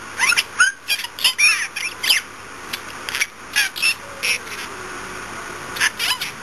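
Budgerigars chirping and chattering: a rapid run of short, quick chirps for the first two seconds, then scattered single chirps.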